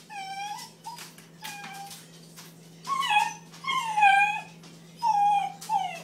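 Bluetick coonhound puppy whining and yowling in drawn-out calls that fall in pitch, about six of them, the loudest about four seconds in. It is protesting at being shut behind a baby gate. There are a few sharp clicks between the calls about a second in.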